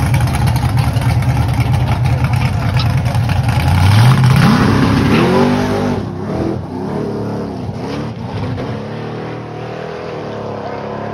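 Drag-racing pickup truck's engine at high revs, a steady drone, then about four seconds in the pitch climbs sharply as it launches, rising and dropping through gear changes and fading as it runs away down the track.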